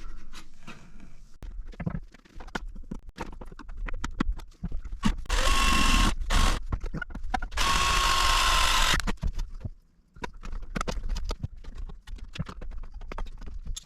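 A power drill runs in two bursts of about a second each, around five and eight seconds in, with short clicks and knocks of hardware being handled around them.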